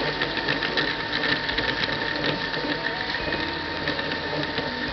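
Electric blender running steadily, crushing ice in a juice drink, with many small clicks of ice against the jar over a steady motor whine.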